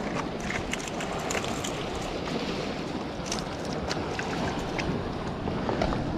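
Sea surf washing against the rocky shore, with wind buffeting the microphone: a steady rushing noise, with a few light clicks and taps over it.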